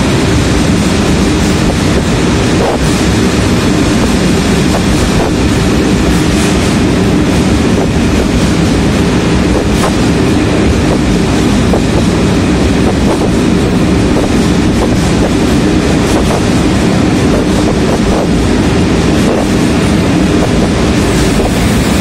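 Freight train of refrigerated-container wagons rolling past close by, a steady loud rumble of wheels on rail with occasional faint clacks, echoing under the station roof.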